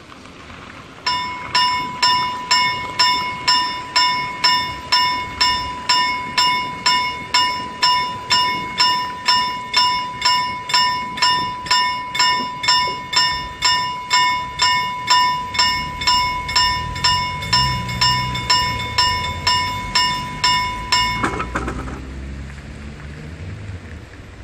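Level-crossing warning bell at a Swedish railway crossing, ringing about two evenly spaced strikes a second, each with a clear pitched ring, to warn of an approaching train. It stops about three seconds before the end, with a low rumble underneath in the last few seconds.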